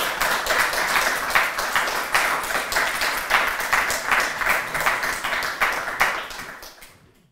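Audience applauding, a dense spell of clapping that fades away over the last second or so.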